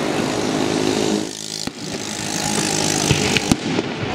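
Fireworks display: a dense, continuous rushing crackle of many bursting stars, with a few separate sharp bangs in the second half.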